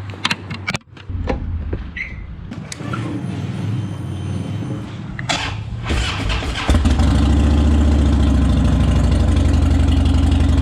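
Harley-Davidson Dyna V-twin being started: a few clicks and a low rumble, then the engine catches about two-thirds of the way in. It settles into a loud, steady, deep idle on its freshly re-gasketed exhaust.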